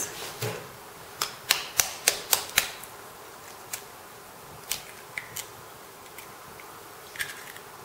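Sharp taps of a metal spoon cracking a raw egg's shell over a ceramic bowl: about six quick taps early, then a few lighter clicks as the shell is broken open.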